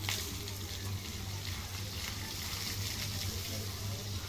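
Steady rush of running or spraying water, an even hiss with a low steady hum underneath.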